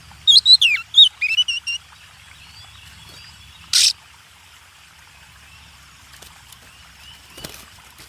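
A bird gives a quick run of sharp, sliding chirps for about a second and a half, then a single short harsh call a few seconds later. Faint steady outdoor ambience, like distant water, runs underneath.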